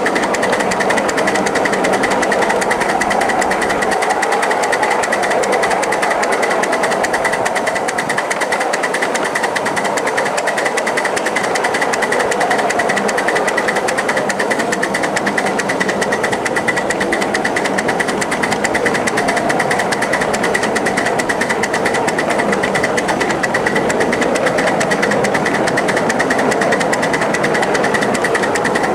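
A 1-inch-scale live steam 0-4-0 switcher running along the track: a steady, rapid mechanical clatter of its exhaust beats and wheels on the rails.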